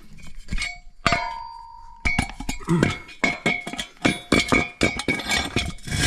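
Steel parts of a dismantled diesel particulate filter clanking and clinking as they are handled: a clang about a second in that rings on briefly, then a quick run of metallic clinks with the same ring from about two seconds on.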